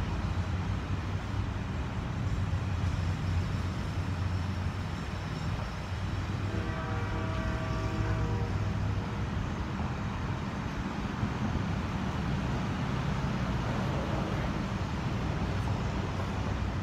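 Steady low rumble of vehicle traffic, with a pitched tone sounding for about two seconds roughly seven seconds in.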